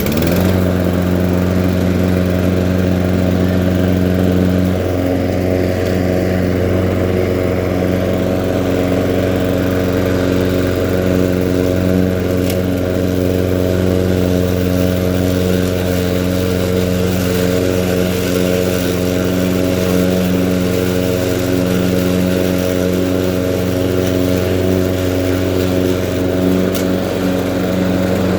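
Husqvarna LC151 walk-behind lawn mower's small petrol engine comes up to speed right at the start, then runs steadily at constant speed under cutting load.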